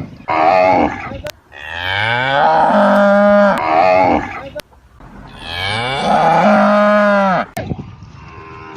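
Cattle mooing: a short moo, then two long, drawn-out moos that start low and rise in pitch before holding.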